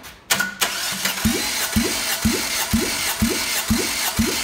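Starter motor cranking a Toyota 4ZZ-FE 1.4-litre four-cylinder engine on the bench for a cold compression test. It starts about a third of a second in and runs with a regular beat about twice a second, while the gauge on the third cylinder climbs to about 13 kg/cm².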